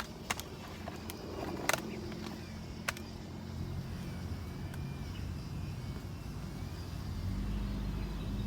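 A few sharp knocks of axe and wood in the first three seconds, the clearest a double knock just under two seconds in, over a low steady rumble of a vehicle engine that grows louder near the end.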